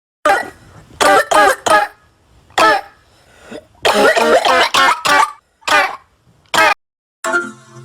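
A string of short, voiced coughs in quick clusters, as cough sound effects: a single cough, then a run of three, more singles, and a longer burst of coughing in the middle. Near the end a steady pitched sound begins.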